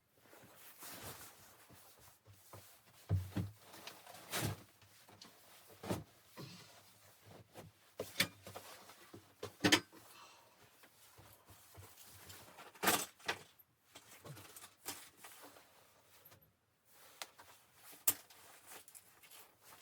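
Irregular knocks, clacks and rustles of objects being handled and set down, with the sharpest clicks about 3, 4.5, 8, 10, 13 and 18 seconds in.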